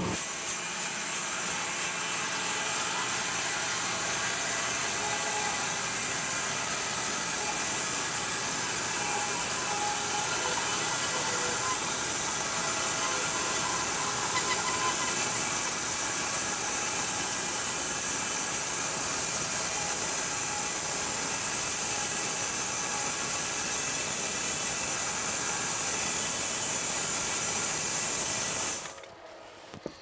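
Wide-cut bandsaw mill sawing through a large walnut log: a steady running hiss from blade and motor that holds even throughout, then cuts off near the end as the cut finishes.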